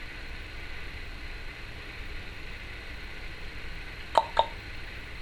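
Timneh African grey parrot making two quick pops about a quarter second apart, near the end.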